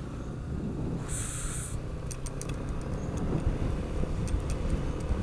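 Yamaha NMAX scooter on the move: its single-cylinder engine and wind buffeting the helmet microphone make an uneven low rumble that grows louder, with a short hiss about a second in.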